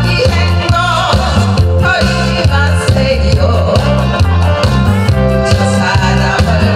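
An older woman singing a Korean pop song into a handheld microphone over loud backing music with a steady bass beat.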